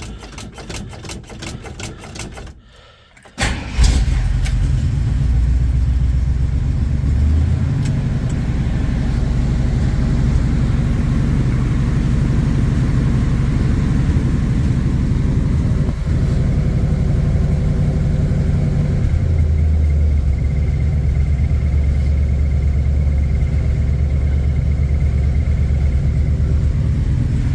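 Jeep J10 engine cold-started: the starter cranks for a couple of seconds, the engine catches about three and a half seconds in, and it settles into a steady idle whose pitch shifts slightly a couple of times.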